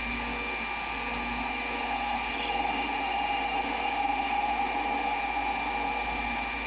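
Metal lathe running steadily while a tool bit faces off the end of a 5/8-inch mild steel bar: a steady machine whine with the noise of the cut.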